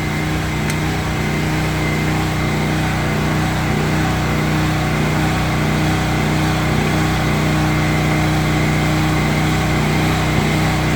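A hair dryer blowing hot air into a diesel tractor's intake, a steady whining drone, while the engine is cranked for a cold start that its faulty glow plugs make hard.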